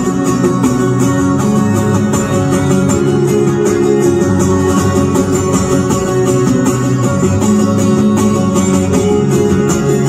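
Acoustic guitar strummed in an instrumental passage of a live song, with rapid, closely spaced strokes and no singing.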